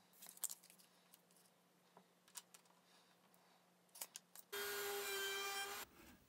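Light taps and clicks of hands setting a router table fence. About four and a half seconds in, a table-mounted router runs at full speed with a steady high whine for about a second and a half, then cuts off abruptly.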